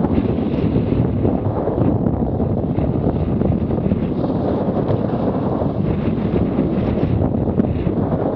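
Loud, steady wind buffeting the microphone of a camera on a Laser Radial sailing dinghy in strong wind, with water rushing and splashing along the hull as the boat moves fast.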